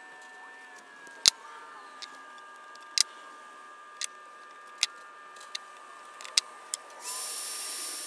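Sharp clicks of a crimping tool and wire strippers, about one a second, as crimp-on terminals go onto motor wires. A loud steady hiss starts about seven seconds in.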